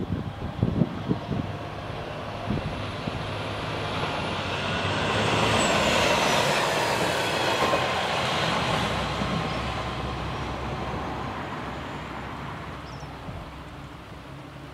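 Chizu Express HOT3500 single-car diesel railcar passing, its engine and wheels on the rails growing louder to a peak about six to eight seconds in, then fading as it goes away. A few low thumps of wind on the microphone in the first second.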